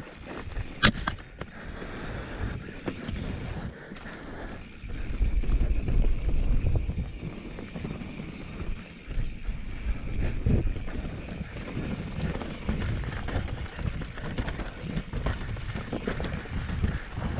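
Mountain bike riding down a dirt trail: wind rumbling on the microphone with the tyres on dirt and the bike knocking and rattling over bumps, a sharp knock about a second in.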